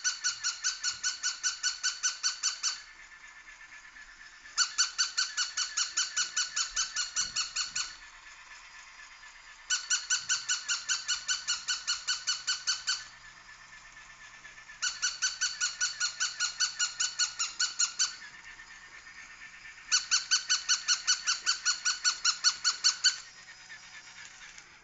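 Paw Pals Chi Chi the Chihuahua battery toy dog barking electronically through its small speaker: five bursts of rapid high-pitched yaps, about six a second, each burst about three seconds long and a couple of seconds apart.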